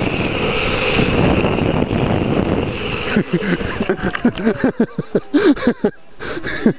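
Wind rushing over a helmet camera and longboard wheels rolling on asphalt at speed. About three seconds in, the roll breaks up into uneven scrapes and knocks as the rider goes down and slides on the road.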